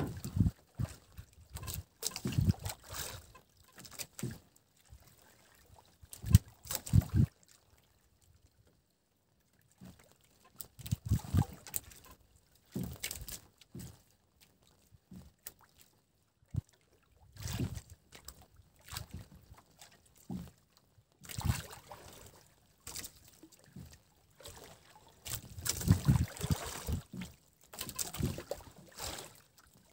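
Water lapping and sloshing against the hull of a small fishing boat, with irregular knocks and thumps on the boat, quieting for a couple of seconds about a third of the way in.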